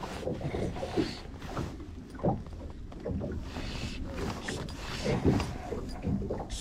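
Small waves lapping and slapping irregularly against the hull of a drifting boat, over a low steady wind rumble.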